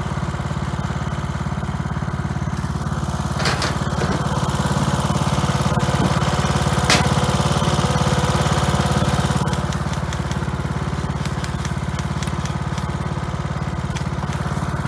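A small engine running steadily, with a couple of sharp cracks over it, one about three and a half seconds in and one about seven seconds in.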